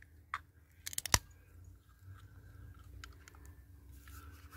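Ring-pull on an aluminium drink can being opened: a small click, then a quick cluster of sharp clicks about a second in as the tab is levered up and the can cracks open.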